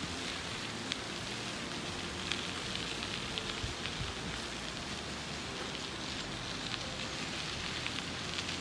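Bicycle tyres rolling over a crushed-gravel trail: a steady crackling hiss with a few scattered small ticks of grit.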